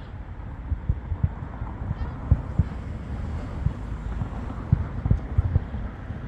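Fireworks shells bursting in the distance: a run of dull low booms, irregular and about one or two a second, over a steady background rumble.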